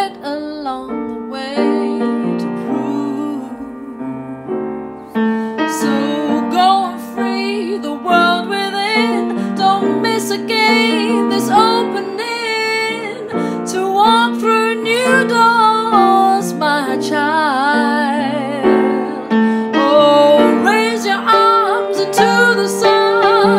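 A woman singing, with wavering vibrato lines, over solo acoustic piano accompaniment; the voice grows fuller and louder about five seconds in.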